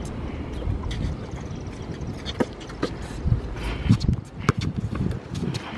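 A basketball bouncing now and then on an outdoor hard court, short knocks and thumps, over a low rumble of wind on the microphone.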